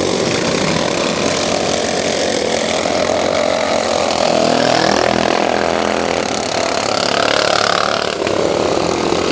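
Racing lawn mower engines running loudly, their pitch shifting up and down as they rev.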